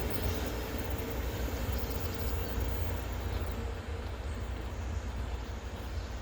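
Train of EF64 electric locomotives and 12-series passenger coaches rolling by on the rails: a steady low rumble of wheels and running gear that eases slightly near the end.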